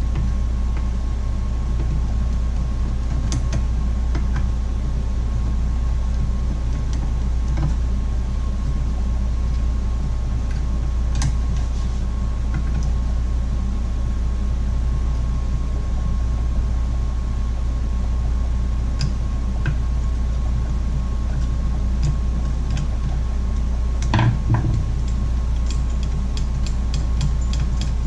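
Steady low workshop hum with scattered light clicks and knocks of tools and parts being handled on a small chainsaw, a few louder knocks near the end and then a quick run of fast, even ticks.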